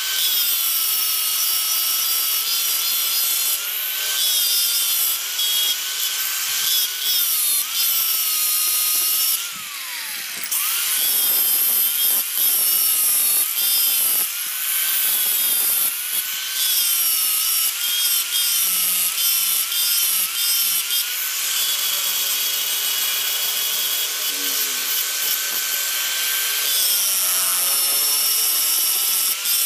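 Electric angle grinder grinding a bar of car leaf-spring steel with an abrasive disc. The motor's steady high whine mixes with the hiss of the disc on the metal. The pitch sags and recovers a few times as the disc is pressed into the steel, most clearly about a third of the way in and near the end.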